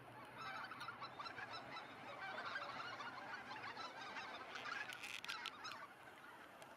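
A flock of geese on the water calling, many honks overlapping into a continuous chatter that swells about half a second in and eases off near the end.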